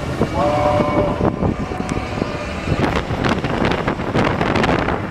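Expedition Everest steel roller coaster train running on its track: wind rushing over the microphone and the cars clattering, with the rattling growing thicker about halfway through.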